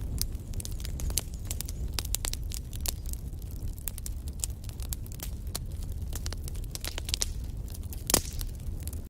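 Wood fire burning in a fireplace: a steady low rumble of flames with frequent sharp crackles and snaps from the logs, one louder pop about eight seconds in.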